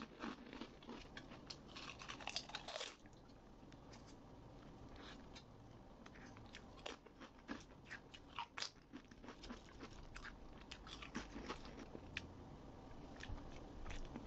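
Close-miked crunching of potato chips being bitten and chewed: runs of crisp crackles that come in clusters, with short lulls between mouthfuls.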